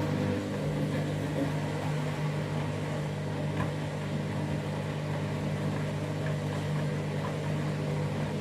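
Washing machine drum spinning in its final spin, the motor giving a steady hum with a whir over it.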